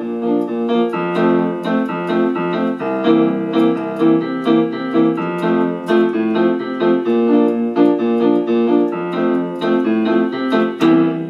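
Electronic keyboard on a string-piano sound playing the left-hand accompaniment: repeated chords over bass notes in a steady rhythm, changing chords every second or two.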